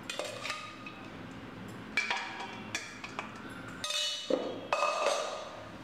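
Stainless steel cookware knocking and clinking as partly cooked chicken pieces are tipped from a pressure cooker into a steel pot: a handful of scattered metallic knocks, each with a short ring.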